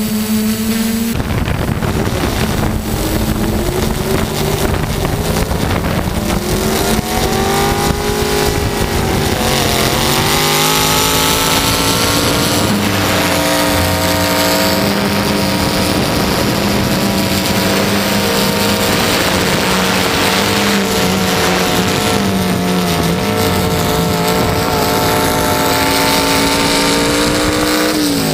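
Multicopter drone's electric motors and propellers whining steadily, heard up close from its onboard camera. Several pitches slide slowly up and down together as the motors speed up and slow down.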